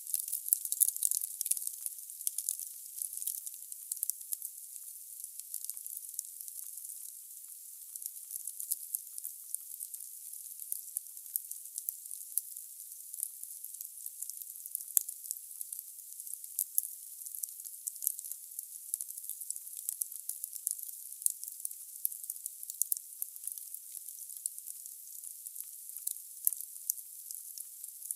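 Wood fire burning in a fireplace: a steady hiss with dense crackling and frequent sharp pops from the burning logs.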